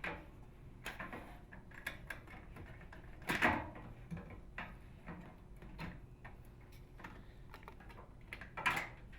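Wire connectors being pulled off a microwave oven's control board: faint clicks and handling noises, with two louder ones about three and a half seconds in and near the end.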